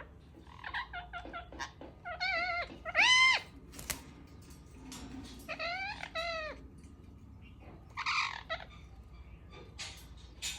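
Ringneck parakeet making strange calls: a run of short chirps and clicks, then wavering, warbling calls, the loudest about three seconds in, another around six seconds, and a harsher, raspier call about eight seconds in.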